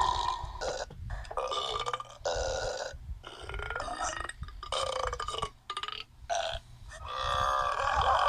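A run of burps, about eight in a row with short pauses between them; the last one near the end is the longest and drawn out.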